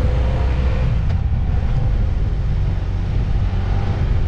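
Motorcycle riding along a road at steady speed: a constant low rumble of the engine and wind rushing past the helmet camera.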